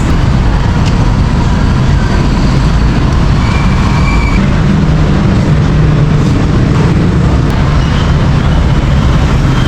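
Steady, loud rumble of running vehicle engines and traffic.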